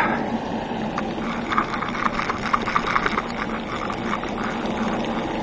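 Fishing reel being cranked to retrieve the line, a quick run of light ticks for a couple of seconds over a steady low hum.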